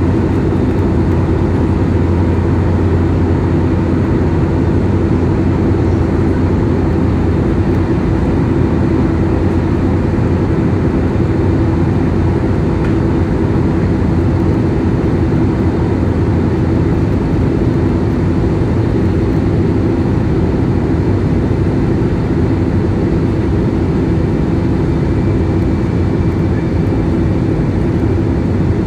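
Steady engine and air noise inside a jet airliner's cabin in flight: a constant low hum that does not change.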